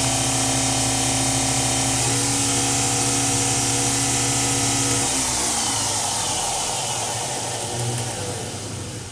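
Acroloc M10 CNC lathe spindle running steadily in high range on its original spindle motor and speed control, a beefy motor-and-belt whine; about five seconds in it winds down, its pitch falling as it slows.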